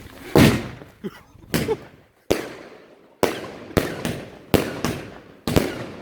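90-shot 1.3G firework cake firing, about ten loud bangs at an uneven pace over six seconds, each ringing on as it echoes off surrounding houses.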